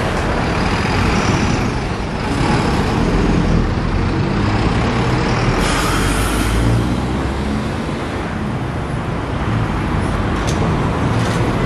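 Street traffic with a NAW/Hess BT-25 electric trolleybus driving past close by, its tyres and running gear rumbling. There is a short hiss about six seconds in and a few sharp clicks near the end.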